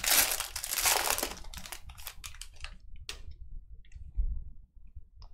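A foil Panini Prizm football card pack being opened by hand, its wrapper crinkling loudly in the first second or so, then a few faint crackles. There is a low thump about four seconds in.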